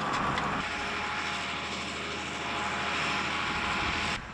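Steady drone of running machinery with a faint hum in it, cutting off suddenly near the end.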